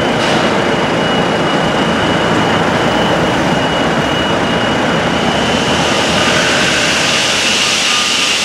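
Heavy construction machinery running in a steady din, with a thin high whine held throughout. A hiss grows louder about halfway through.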